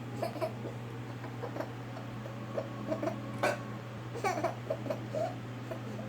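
A baby's short giggles and babbling sounds, with a sharp hiccup from the mother about halfway through, over a steady low hum.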